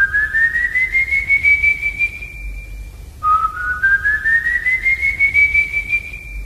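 Eerie whistling standing for the Silbón's whistle: a long whistled note that slides slowly upward and levels off, then a second one just after three seconds in that climbs the same way. A low rumble runs underneath.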